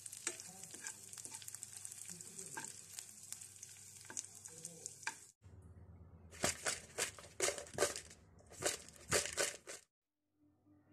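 Chopped garlic sizzling in hot oil in a pan and being stirred with a metal spoon: a steady hiss with fine crackles. It cuts off about five seconds in. After a short break come about seven louder rustling bursts.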